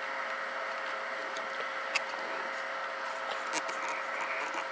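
Ten-Tec Titan II linear amplifier running under load: a steady whir with a steady hum tone, and a few faint clicks.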